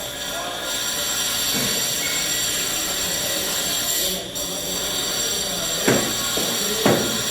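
Steady hiss of a brazing torch flame on copper refrigerant pipe, with two short sharp knocks near the end.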